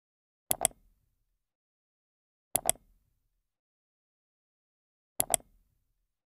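Computer mouse-click sound effects: three quick double clicks, a couple of seconds apart, in an animated like-share-subscribe end screen.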